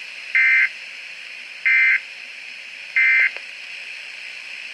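Weather radio sending three short bursts of SAME digital data tones, evenly spaced about 1.3 seconds apart, over steady radio hiss. Bursts this short are the end-of-message code that closes an alert bulletin.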